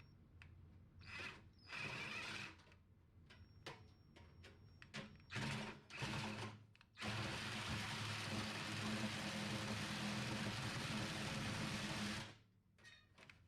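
Short knocks and handling clatter, then a handheld power tool runs steadily for about five seconds and stops.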